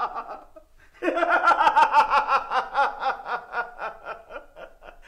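A man laughing: after a short lull about half a second in, a long run of quick pitched pulses of laughter that slowly grows weaker.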